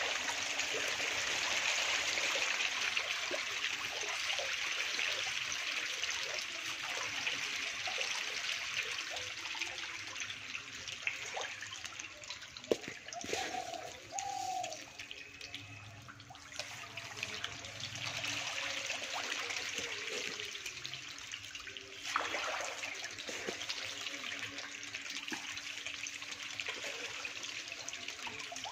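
A dense mass of magur (walking catfish) fingerlings thrashing at the water's surface in a hatchery tank at feeding time: a continuous fizzing, splashing hiss that dies down through the middle and picks up again suddenly about two-thirds of the way in. A faint steady hum runs underneath.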